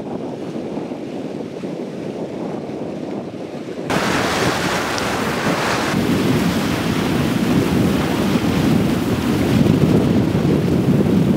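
Wind buffeting the microphone over water rushing past the hull of a yacht under way. The sound shifts abruptly about four seconds in and grows louder and heavier in the second half.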